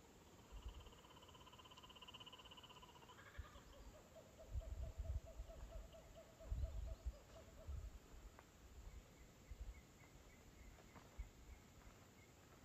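Faint rapidly pulsed animal trills, each held at a steady pitch: a high one for about three seconds, then a lower one for about four seconds, then a fainter high one, with a few low thuds on the microphone in between.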